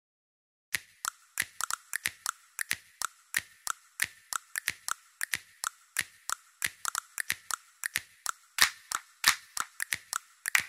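A quick, irregular series of sharp clicks or taps, several a second, starting just under a second in.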